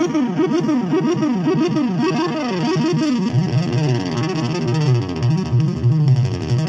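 Music played back loud through a pair of Videocon bookshelf speakers driven by a Lepai class D mini amplifier that has been fitted with an extra capacitor to cut hum; a heavy bass line comes in about three seconds in.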